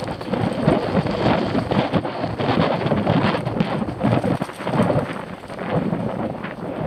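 Mountain bike rattling and knocking over a rough dirt trail, with tyre noise and wind buffeting the handlebar-mounted action camera's microphone.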